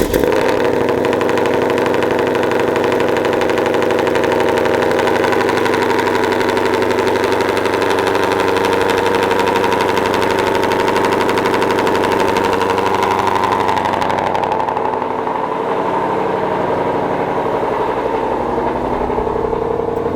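Shelby GT500's twin-turbo 5.2-litre V8 running at a steady, loud fast idle just after a cold start, heard through the stock active catback exhaust; the sound eases off slightly about fourteen seconds in.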